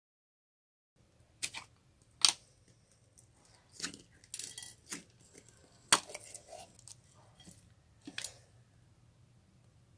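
Slime being pressed and mixed by hand, giving a string of sharp, irregular clicks and pops about once a second, starting after a second of silence.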